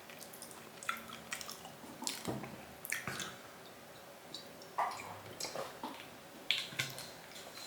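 Wet chewing and mouth smacks: faint, irregular clicks and squishy smacks a fraction of a second to a second apart, a few of them louder.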